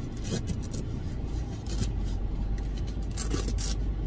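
Rustling and scraping of a Zhiyun Crane M3 gimbal and its plastic wrapping being handled inside a padded carry bag, in short bursts about a third of a second in, near two seconds and around three seconds. A low steady rumble runs underneath and grows stronger a little before two seconds in.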